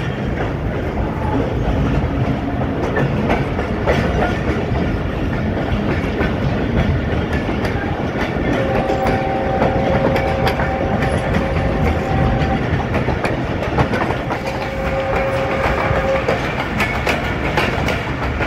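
Bolan Mail passenger train running, a steady rumble with the clickety-clack of wheels over rail joints. About halfway through, a steady two-note tone sounds for about four seconds, and again more briefly a little later.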